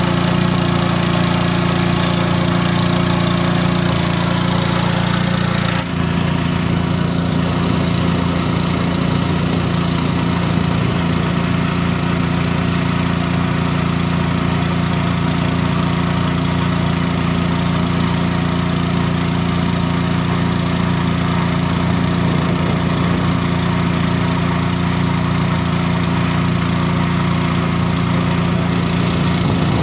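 Small boat engine running steadily, pushing the wooden boat across the water. A high hiss over the engine stops abruptly about six seconds in.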